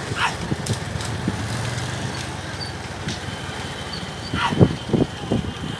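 Motorcycle engines running steadily, with wind and road noise, alongside a rekla bullock cart race. A couple of brief high calls cut through, one near the start and one about four and a half seconds in.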